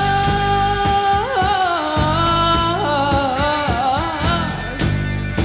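Rock band playing live on electric guitars, bass and drums, with a long held note near the start that then bends up and down in pitch.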